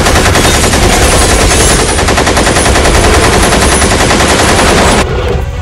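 Machine-gun fire: one long continuous burst of rapid shots that cuts off about five seconds in.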